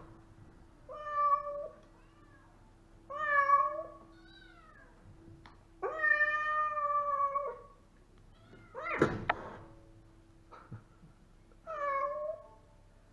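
Domestic cat meowing repeatedly, about six drawn-out meows with gaps between them, the longest lasting over a second and a half near the middle. A louder, rougher call about nine seconds in comes with a sharp knock.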